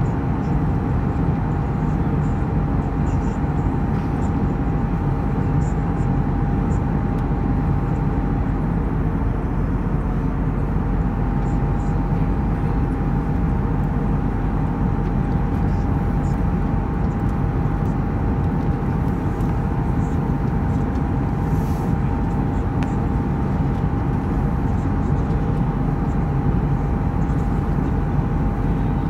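Steady cabin noise of an Airbus A320 in flight, the engines and rushing air heard from inside the cabin, with a thin steady tone running through it that drops out for a moment about ten seconds in.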